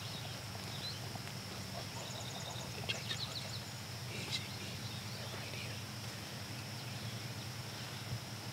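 Quiet woodland ambience: a steady high-pitched hum under a few short bird chirps, including a quick run of high notes about two seconds in and scattered chirps a second or two later.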